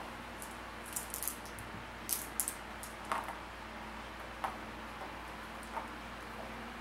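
Flat glass game pieces clicking as they are picked from a small pile and set down on a cardboard game board. Several light separate clicks, some in quick pairs, over a steady low hum.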